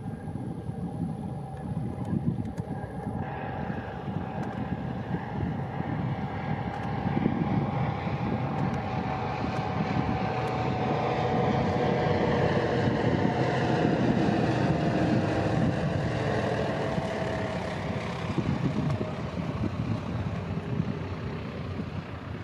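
Nanchang CJ-6 (PT-6) trainer's nine-cylinder radial engine on landing approach. It grows louder as the plane passes close overhead about midway, with its tone slowly falling, then eases as the plane comes down to the runway.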